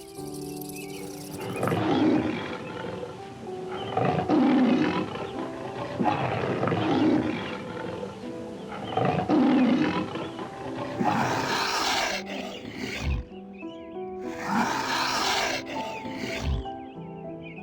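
A large animal giving a series of loud, rough calls about every two and a half seconds, over background music.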